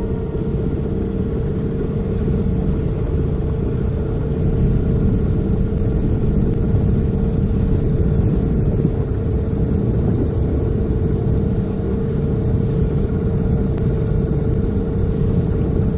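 Small outboard motor running steadily at trolling speed: an even drone with a constant whine over a low rumble.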